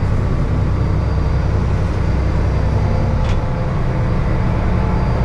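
Yanmar EX38 boat's diesel engine running steadily under way: a low drone with a steady rushing hiss of water and wind over it.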